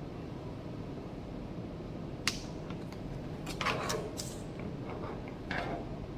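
A few small clicks and short scrapes of hard plastic and metal, one sharp click about two seconds in, from handling and prying at a phone being opened, over a steady low room hum.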